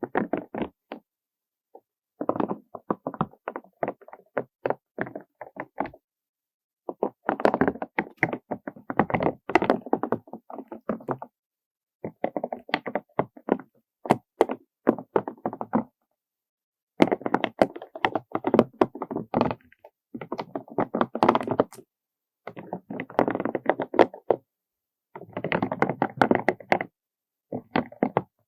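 Gentle scratching and rapid tapping on small hard milky-coloured items, making quick runs of soft clicks and knocks. Each run lasts a second or two, with short pauses between.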